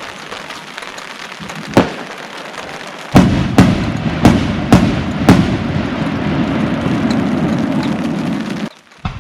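Fireworks shells bursting over a steady crackle: one bang about two seconds in, then from about three seconds a quick run of five loud bangs over a thick crackling, which cuts off abruptly near the end, followed by one more short bang.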